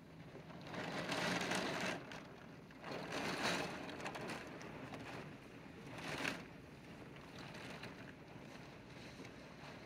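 Storm wind blowing in gusts, with three surges: about a second in, about three seconds in, and a shorter one about six seconds in.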